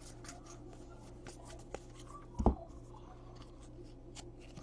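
Football trading cards being handled by hand: faint rustles and light clicks of cards sliding over one another, with one dull thump about halfway through.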